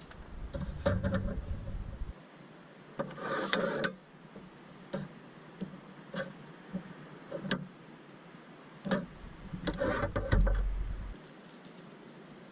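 Irregular knocks, clicks and rustling of objects being handled, with two stretches of low rumble, one at the start and one near the end.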